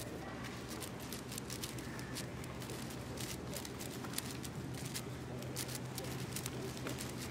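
AoShi WRM 6x6 speedcube being turned fast by hand: a quick, irregular run of plastic clicks and clacks as its layers are turned, over a steady low hum.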